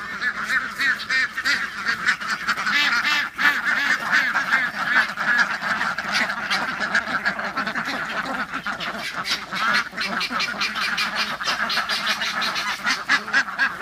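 A large flock of domestic ducks quacking all together in a dense, continuous chorus of overlapping quacks. The quacking is that of excited, happy ducks.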